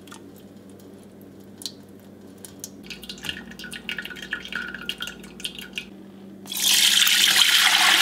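Malt liquid from a rice and sprouted-barley mash being strained: small clicks and dripping as the mash is ladled into a mesh strainer, then, about six and a half seconds in, a loud steady pouring as the liquid is tipped from a pot through the strainer into a steel pot.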